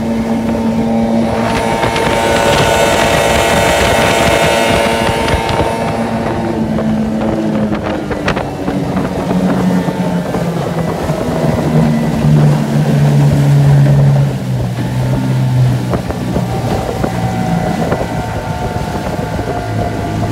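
Modified 9.8 hp two-stroke outboard, ported and fitted with an 18 hp carburettor, running hard and pushing a small aluminium boat, with wind buffeting the microphone and water rushing. The engine note falls gradually in pitch over the second half.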